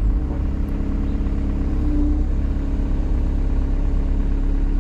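Excavator's diesel engine running steadily under work, a low even drone.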